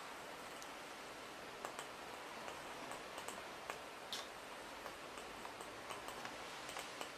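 Faint, irregular clicking of a 0m-gauge model train's wheels running over the track, over a steady hiss.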